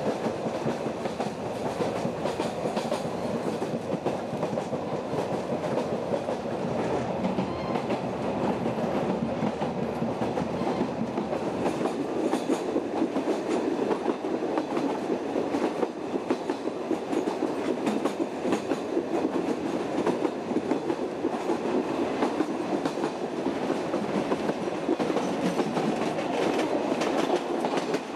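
Wooden carriage of the Palma–Sóller narrow-gauge train running steadily along the track, its wheels giving a constant rolling noise with many small clicks.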